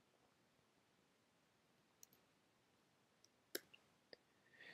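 Near silence with a few isolated faint clicks from the computer being worked, the clearest about three and a half seconds in.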